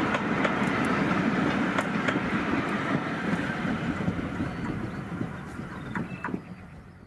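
A train of passenger coaches rolling away along the track, the wheels clicking over the rail joints, the rumble fading steadily as the train recedes.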